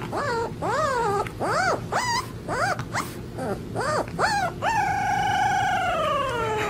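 Husky-type puppy howling: a string of short yelping howls that rise and fall in pitch, then one long howl of about two seconds that drops in pitch as it ends.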